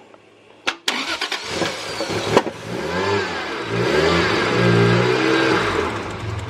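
Toyota 1JZ twin-turbo straight-six in a Lexus SC300 cranking on the starter and catching, then revving up and down with the throttle before settling into an idle. It is a warm restart on a freshly wired engine swap with no coolant in it.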